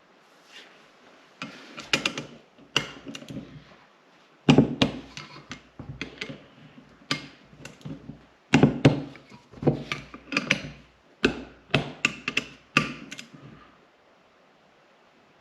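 Sharp clicks and knocks of metal tools and parts being handled on a workbench, in irregular clusters with short pauses, while the oil pump is put back together.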